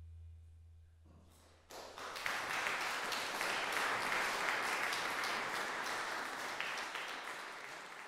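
A low held note fades out over the first second or so; then, about a second and a half in, the audience breaks into applause, steady clapping that tapers off near the end.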